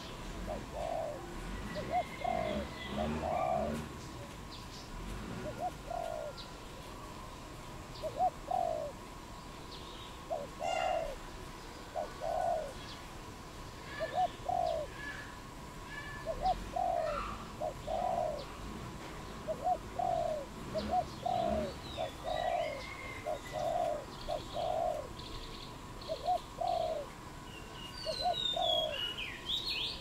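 Spotted dove cooing: low coos repeated in short groups of two or three. Small birds chirp faintly in the background, and a quick run of higher calls comes near the end.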